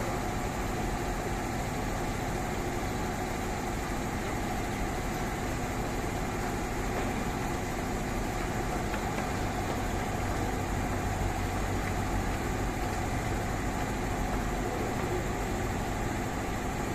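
Diesel-electric locomotive engine running with a steady low hum as the train moves slowly.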